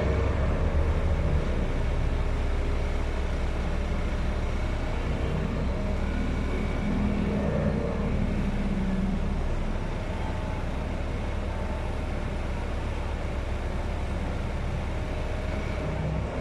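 Heavy construction machinery running with a steady low rumble.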